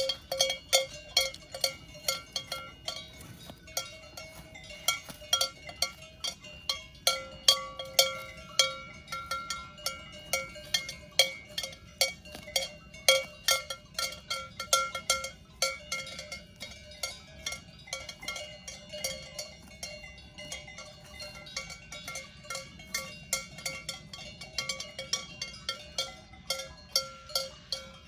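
Cowbells hung on grazing Swiss cows clanking irregularly as the cows move, about two or three clanks a second. Several bells of different pitches overlap, each ringing on briefly after it is struck.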